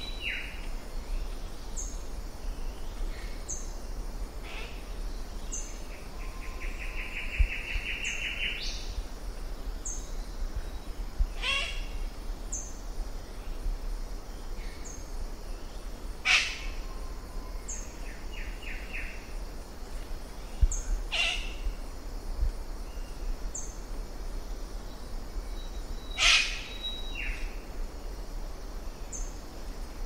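Mixed chorus of New Guinea forest birds. A high, short upswept note repeats about once a second, buzzy rapid trills come and go, and four loud harsh calls sound about five seconds apart, over a low steady hum.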